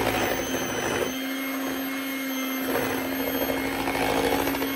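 Electric hand mixer running steadily, its beaters whipping whipped cream into banana pudding in a stainless steel bowl.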